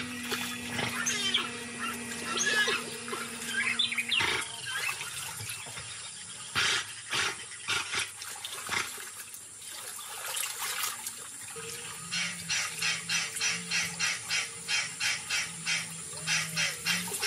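Jaguar wading through a shallow river, water sloshing and splashing around its body, with birds chirping in the first few seconds. About twelve seconds in, a soft rhythmic beat of about two pulses a second comes in.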